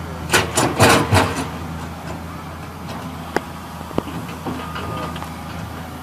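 Tracked hydraulic excavator's diesel engine running steadily under load while the bucket works wet mud. There are several loud rough scraping bursts in the first second and a half, then two sharp knocks about three and four seconds in.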